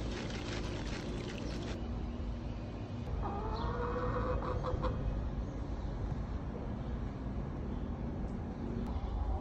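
Epsom salt poured from its bag into a plastic tub of water, a grainy hiss for nearly two seconds. About three seconds in, a hen gives one drawn-out call of about two seconds, with a few light clicks near its end.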